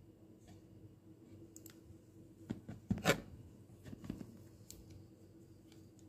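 Plastic reagent bottles handled in a cardboard kit box: a short cluster of light knocks, clicks and scrapes around the middle, the sharpest about three seconds in.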